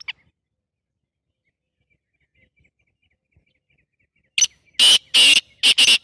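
Black francolin calling loudly: one short note about four seconds in, then three longer notes in quick succession near the end.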